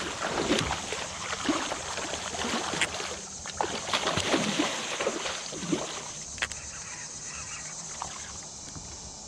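A hooked muskie thrashing and splashing at the water's surface beside the boat, the water sloshing. The splashing is heaviest over the first six seconds and then dies down.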